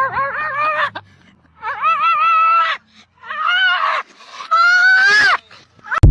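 Cat meowing loudly in four long, wavering calls, followed near the end by a sudden loud thump.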